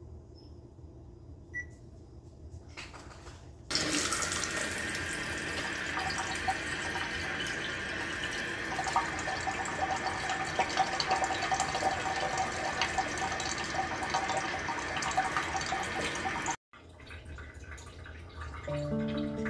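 Water from a Kangen water ionizer's spout running steadily into a glass mason jar for about thirteen seconds, starting suddenly about four seconds in and cutting off abruptly. Music begins near the end.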